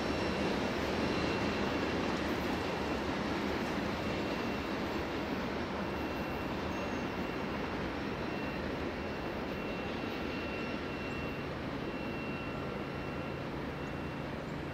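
Freight train's cars rolling away down the track, a steady rumble slowly fading as it recedes, with a faint high tone coming and going.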